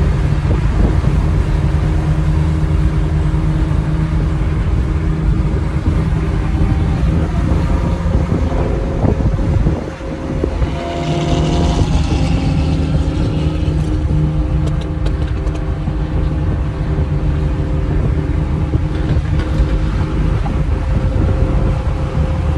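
Car engine drone and road noise inside the cabin at steady freeway cruising speed. There is a short dip about halfway through, followed by a brief hiss.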